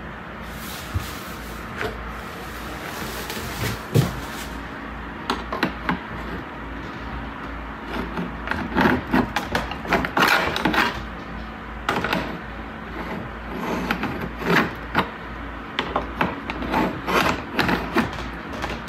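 Irregular knocks, clicks and rustles of handling over a steady low hum, busiest about eight to eleven seconds in and again from about fourteen seconds in.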